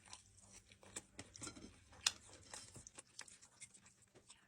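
Close-miked mouth sounds of someone eating: chewing and smacking, an irregular run of small wet clicks with one sharper click about two seconds in.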